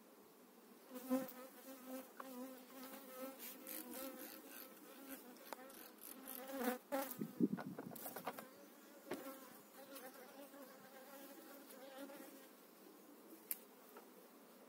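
Honey bee buzzing close by, a wavering drone at one pitch that starts about a second in and dies away near the end. A few sharp knocks and rustles of plastic hive feeder trays being handled come in the middle, and one more click near the end.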